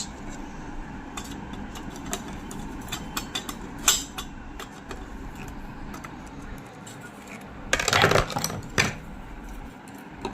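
Metal clicks and rattles of tools and parts being handled on a zig-zag sewing machine during its final reassembly, with a louder burst of clatter about eight seconds in.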